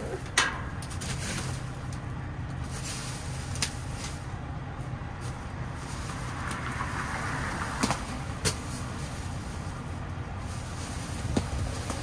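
Plastic trash bags rustling and scattered knocks and clicks as someone digs through a dumpster with a grabber tool, with a louder rustle about six and a half seconds in, over a steady low engine hum.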